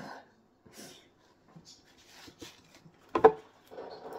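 Handling a glass vase while cleaning it: a few faint short spray-bottle hisses, then one loud knock of the glass about three seconds in, followed by steady rubbing on the glass.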